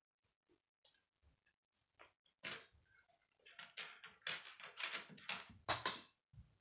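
K'nex plastic rods and connectors clicking and rattling as they are fitted together by hand: a few light clicks, then a busy run of clicks and scraping in the second half, with the sharpest snap near the end.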